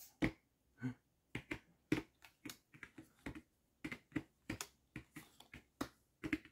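A run of sharp finger snaps, irregular, at about three a second.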